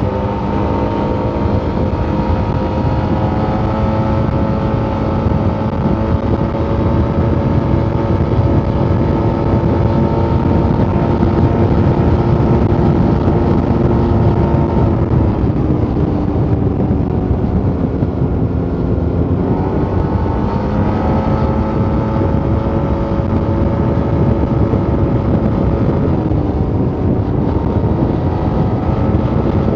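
Yamaha T-Max 530 maxi-scooter's parallel-twin engine on its stock exhaust, running steadily under way with wind noise. About halfway through, the engine note falls and then climbs back up. It dips briefly again near the end.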